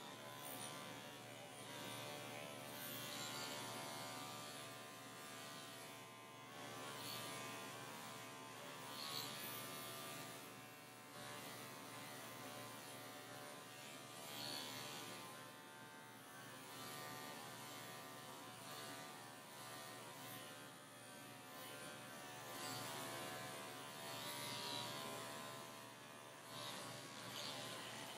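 Cordless dog-grooming clipper running steadily as its blade shaves through a pelt-matted coat. The motor's hum swells and dips slightly as the blade is worked through the mats.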